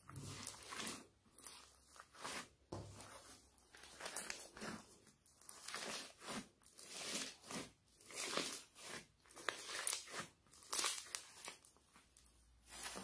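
Floam slime packed with small foam beads being squeezed and kneaded by hand: irregular crunching, crackling squishes, roughly one every half second to a second, with one sharper crackle near the end.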